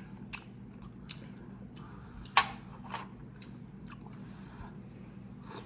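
Close-miked chewing of a mouthful of lasagna soup: soft wet mouth clicks and smacks, with one sharper click about two and a half seconds in.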